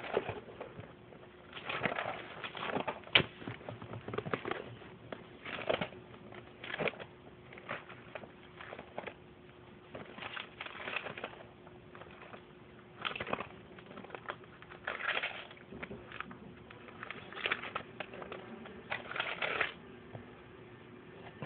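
Paper rustling and crinkling in short irregular bursts as pages are handled, over a faint steady hum.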